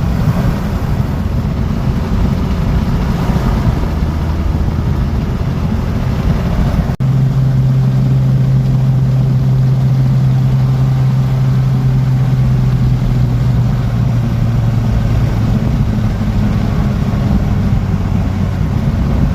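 Piper light aircraft's piston engine and propeller running; after a break about seven seconds in, the engine holds a strong steady drone at high power, pushed hard in a full-power run-up after its annual inspection.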